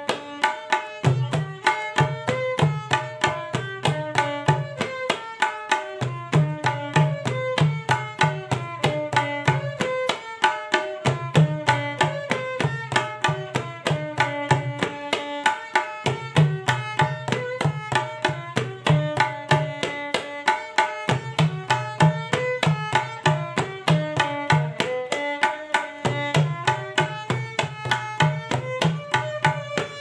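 Tabla playing the teen taal theka, its 16-beat cycle coming round about every five seconds. The bayan's deep bass strokes drop out for about a second in each cycle, at the khali, while the dayan's strokes keep steady time. A melodic instrument plays a stepping tune over the drums.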